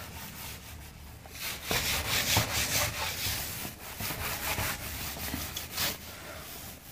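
A bare palm wiping marker writing off a whiteboard: a run of rubbing, swishing strokes, loudest a couple of seconds in.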